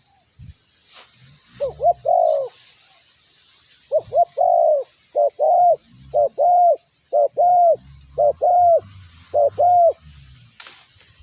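Spotted dove cooing: one phrase about two seconds in, then a run of six phrases, each a short note followed by a longer arching coo. A steady high hiss sits behind it.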